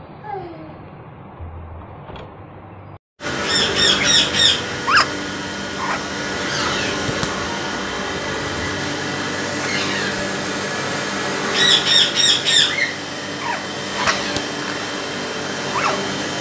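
Parrot calls: scattered short whistles that rise or fall in pitch, and two bouts of rapid, harsh squawking chatter about a second long each, over a steady hum. The sound is quieter for the first three seconds, breaks off briefly, then comes in loud.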